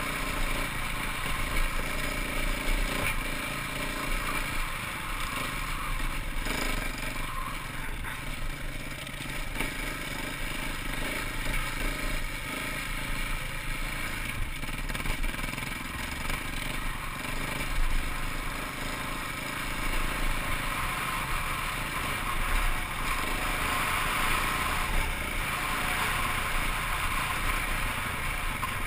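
KTM dirt bike's engine running as it is ridden along a rough trail, heard from the rider's helmet, its note swelling and easing a little with the throttle.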